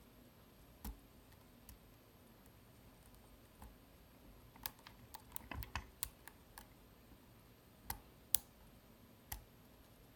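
Scattered small clicks and taps of lock-picking tools working the sliders of a Vidmar cabinet slider lock, with a quick run of clicks around the middle.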